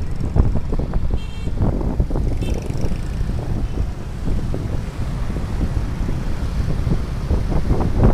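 Wind buffeting the microphone and road noise on a moving motorcycle, with two short, faint horn toots, about a second in and again around two and a half seconds in.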